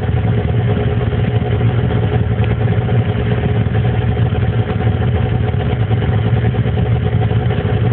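Snowmobile engine idling steadily, an even low hum with no revving.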